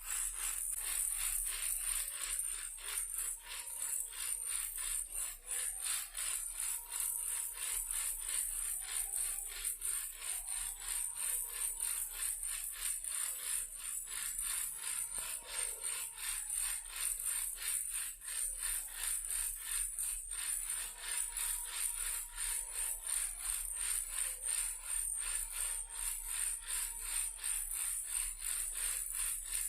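Toy car shaken as a baby rattle, rattling in quick, even strokes without a break.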